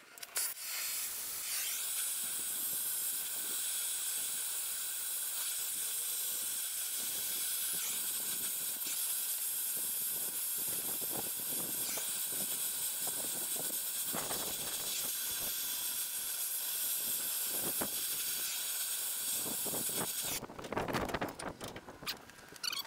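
Oxy-fuel torch flame hissing steadily while it heats a seized hoist cylinder rod fitting, to expand the fitting and free the rod. The hiss cuts off about twenty seconds in, followed by a few short knocks.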